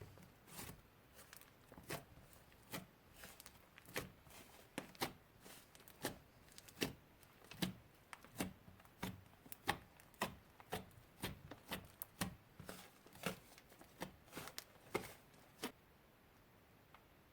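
Slime being pressed and poked by hand, making a run of sharp sticky pops and clicks, about two a second, that stops shortly before the end.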